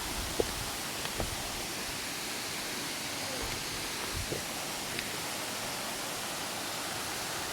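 Steady rushing of a waterfall, with a few short sharp clicks, the loudest about half a second in.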